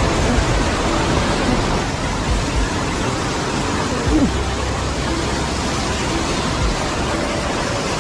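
Steady, loud rush of water from a waterfall, an even roar with no breaks.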